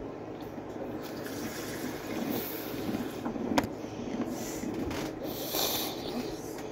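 Water running from a tap, with one sharp click about halfway through.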